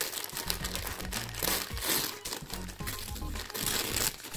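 Gift wrapping crinkling and rustling as it is handled and opened, a dense, irregular crackle, over quiet background music.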